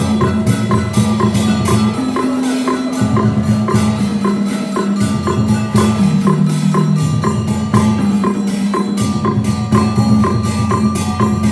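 Traditional Vietnamese water puppet theatre music: a wood block struck in a regular, quick beat over held low instrumental tones that change pitch every second or two.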